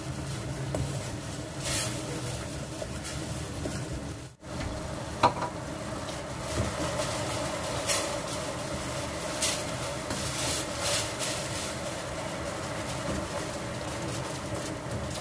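Cooking in a pan on the stove: a spoon or spatula stirring, with a light sizzle and scattered scraping strokes. The sound drops out briefly about four seconds in, followed by a sharp click.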